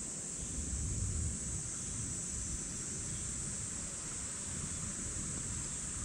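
Field insects chirring in one steady, high-pitched drone, with a low rumble of wind on the microphone underneath.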